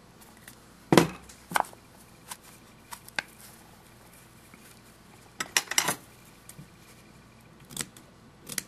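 Scattered light knocks and taps of hands handling a fabric-covered cardboard tube on a craft table. The loudest knock comes about a second in, and a quick run of clicks follows about five and a half seconds in.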